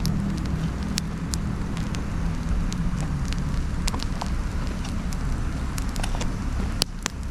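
Wood bonfire of dried shiitake logs and fig branches burning, crackling with scattered sharp pops over a steady low rumble.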